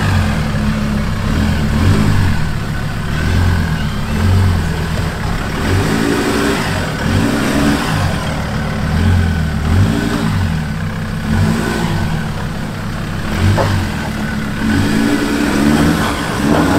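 Mazda BT-50 four-wheel drive crawling up a rutted rocky climb, its engine revving up and easing off again and again.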